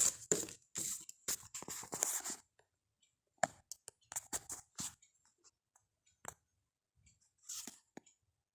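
Handling noise from a small HDMI video capture device and its packaging: about two seconds of rustling and scraping, then scattered light clicks and taps.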